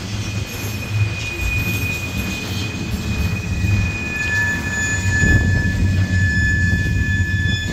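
Freight cars of a CSX manifest train rolling past with a steady low rumble and squealing steel wheels. One high squeal tone starts about half a second in, and a second, lower one joins about four seconds in.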